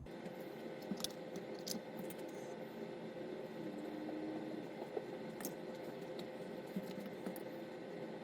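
Faint handling sounds of small model parts being fitted by hand: a few light scattered clicks over a low steady hum.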